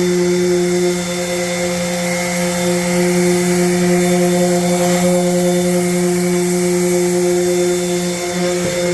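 Festool palm sander running steadily with an even motor hum, screening the finish on hardwood stair treads.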